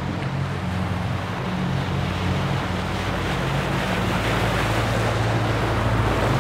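Motorboat engine running steadily under way, with water rushing and splashing along the hull and wind on the microphone.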